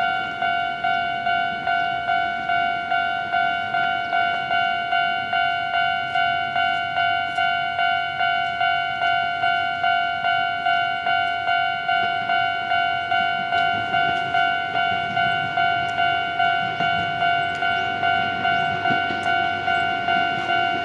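Japanese level crossing warning bell, the electronic "kan-kan" alarm, ringing steadily at about two strikes a second. A low rumble, typical of an approaching train, grows in the second half.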